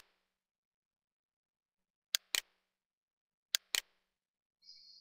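Computer mouse button clicks: one click at the start, then two quick pairs of clicks about two and three and a half seconds in, as colour entries are right-clicked and a menu item is chosen.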